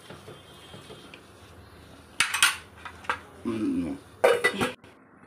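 Metal spoon stirring and scraping in a stainless steel pot, then a steel lid clattering against the pot rim in several sharp metallic knocks, the loudest just past four seconds in.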